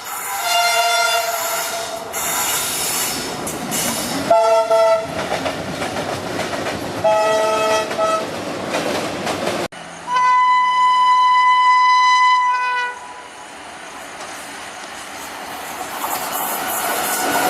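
Indian Railways locomotive horns over the noise of a train running on the rails. One horn gives three short blasts a few seconds apart. Then a second, higher-pitched horn gives one long blast of about two and a half seconds, and the rail noise carries on.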